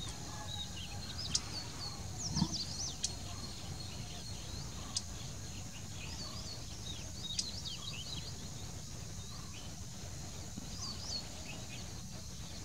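Small birds giving short, quick chirps and twittering notes in scattered clusters, busiest in the first few seconds and again around the middle, with a few sharp ticks. Underneath runs a steady high insect hiss and a low background rumble.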